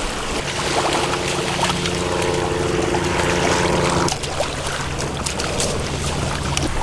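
Steady engine drone over wind and surf noise; its higher tones cut off about four seconds in, leaving a low hum.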